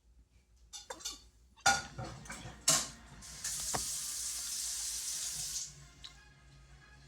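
A few knocks and clatters, then a water tap running for about two seconds before it is shut off.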